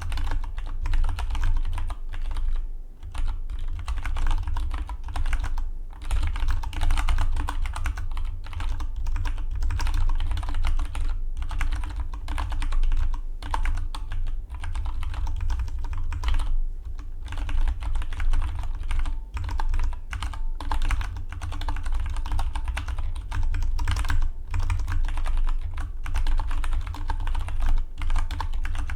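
Fast continuous typing on a Dygma Defy split mechanical keyboard: rapid key clacks with short pauses between bursts, over a steady low hum.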